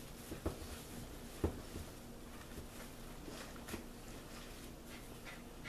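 Quiet handling noises from a doll being turned over in the hands: two soft knocks in the first second and a half, then scattered small clicks and light rustles.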